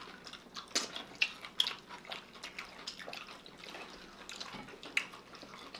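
People chewing and biting food, with many short mouth clicks and smacks scattered through and a few sharper ones standing out.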